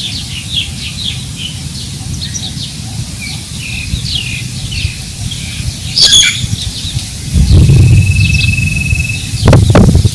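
Wind buffeting the microphone over a rice paddy while many small birds chirp. Stronger gusts come about seven and a half seconds in and again near the end.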